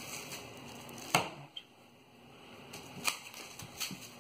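Short, sharp handling knocks, one about a second in and another about three seconds in with a smaller one near the end, as a still-soft epoxy-and-Kevlar composite plate is worked loose from a plastic-wrapped plywood board.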